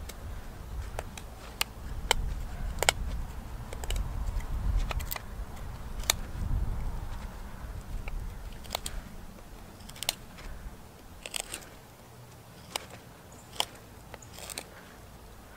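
A folding knife's blade whittling wood, slicing off shavings in irregular, short crisp cuts and scrapes. A low rumble sits under the first half.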